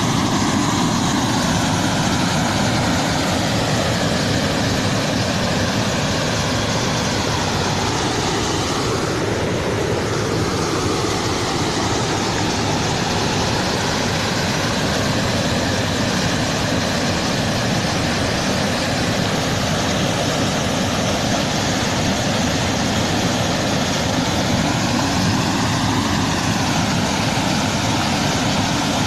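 River floodwater pouring over the crest of a low dam and churning into white water below: a steady, loud rush.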